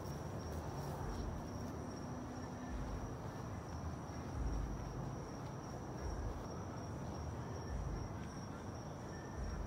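Insects trilling: a steady, high-pitched note with no break, over a low rumbling background.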